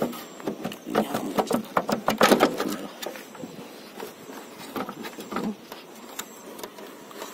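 Volkswagen Polo plastic tail-light housing being worked free of its retaining clips by hand: a quick run of plastic clicks and rattles, loudest about two seconds in, then a few scattered clicks.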